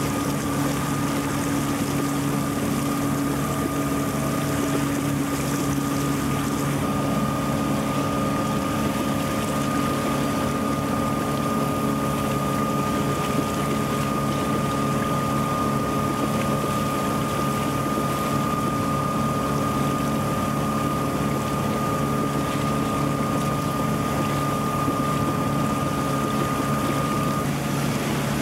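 Sailboat's inboard engine running steadily under way, a constant drone with a thin high whine, over water rushing along the hull.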